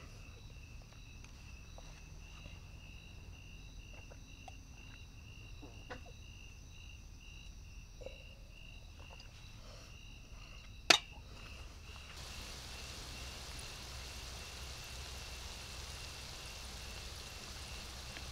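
Night insects chirping in a steady, evenly pulsing high trill, with faint small clicks. About eleven seconds in comes one sharp click, and about a second later a soft even hiss rises beneath the chirping.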